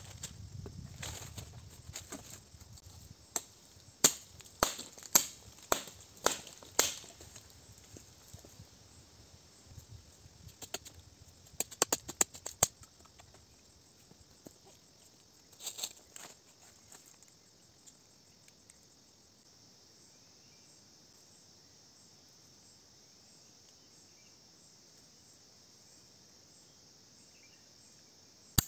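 Scraping in dry soil, then a run of about seven sharp cracks and knocks, about two a second, with a second shorter cluster a few seconds later, all from hand work on a small fire pit in the ground. The last half is only a faint steady outdoor hiss.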